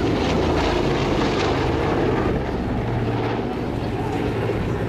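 Lockheed C-121C Super Constellation's four Wright R-3350 radial piston engines and propellers running steadily as the airliner passes low and banks away, the sound easing a little about halfway through.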